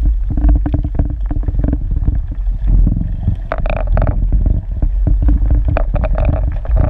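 Underwater noise picked up by a submerged camera: a heavy low rumble of water moving around the housing, with many irregular clicks and knocks and a steady low hum underneath.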